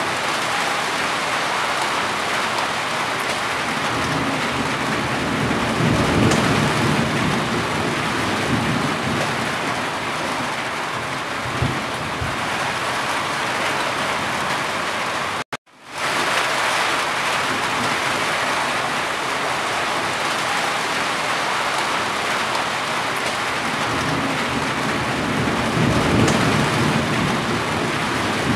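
Steady, dense rain drumming on a roof, with water dripping from the eaves. A low rumble swells up twice, about six seconds in and near the end. The sound cuts out completely for a split second about halfway.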